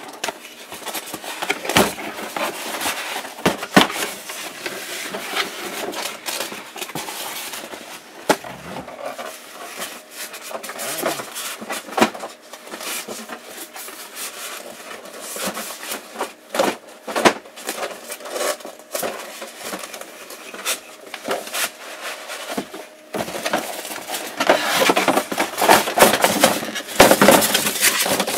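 Packaging being handled: a cardboard box and its packing lifted, shifted and opened, giving an irregular run of rustles, scrapes and knocks that grows denser and louder near the end.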